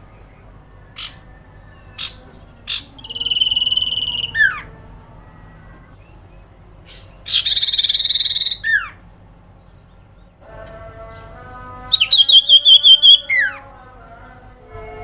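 Common iora (cipoh) calling: a buzzy high trill ending in a quick falling note, then a loud rasping burst, and later a rapid run of about eight sharp notes a second that ends in another falling glide. A few short clicks come in the first seconds, and a lower drawn-out call runs beneath the second half.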